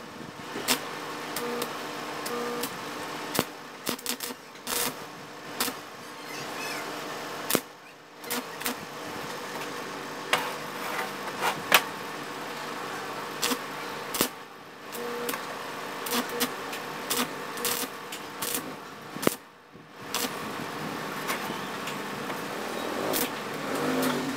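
Sharp, irregular clinks and knocks of small steel angle-bar pieces being picked up and set down on a work table by gloved hands, over a steady motor hum.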